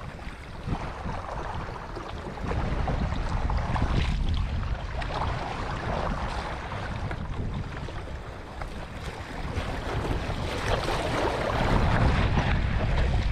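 Wind buffeting the microphone and water splashing against a sailing kayak's hull, growing louder about ten seconds in.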